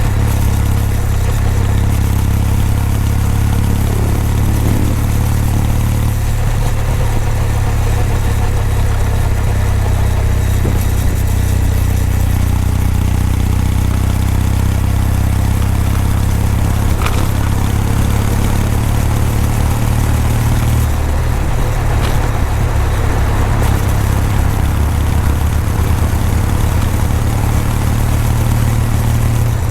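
Kawasaki W800's air-cooled parallel-twin engine and exhaust running steadily while the motorcycle is ridden along, a deep low exhaust note with little change in level.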